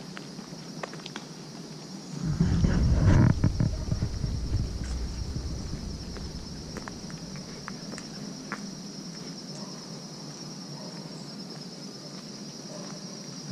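Insects trilling steadily in a high pitch from the woodland, with light footsteps on a paved path. A loud low rumble comes in about two seconds in and fades out over the next few seconds.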